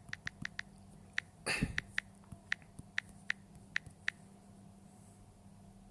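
Irregular keystroke clicks, about a dozen, as an email address is typed in, with a short breathy puff about one and a half seconds in.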